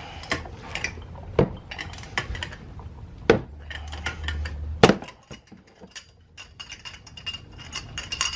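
Steel hand tools clinking and knocking: a socket and extension being handled and fitted onto the hub bolts. There are four sharp metallic knocks about a second or two apart, with lighter clinks between them.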